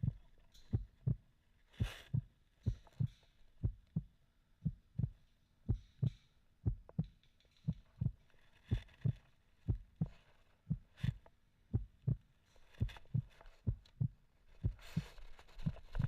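Low, muffled thumps in a steady rhythm of about two a second, with brief rustling noise now and then.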